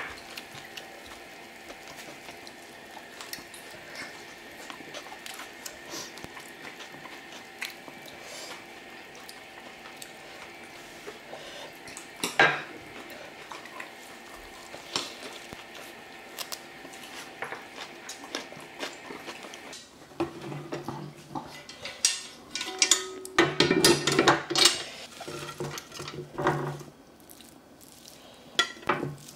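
Metal tongs clacking and scraping on an electric grill's plate as food is moved around, with a run of loud, quick clatters near the end. Before that, a quieter stretch of occasional chopstick and dish clicks over a steady hum.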